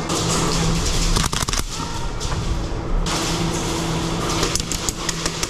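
Background music and a steady hum fill the indoor airsoft arena, with scattered sharp clicks and cracks of airsoft gunfire and BB hits, a cluster about a second in and more near the end.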